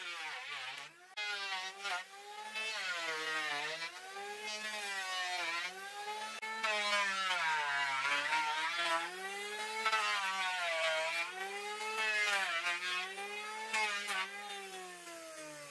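A motor running with its pitch rising and falling in smooth swells about once a second, with a few brief dips.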